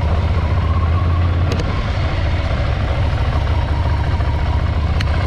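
Ducati Scrambler Desert Sled's air-cooled L-twin engine running steadily at low revs, with two short clicks, one about a second and a half in and one near the end.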